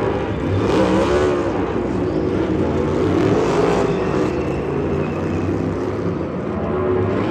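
Stock car engines at racing speed, several cars passing one after another, each engine's pitch rising and then falling as it goes by.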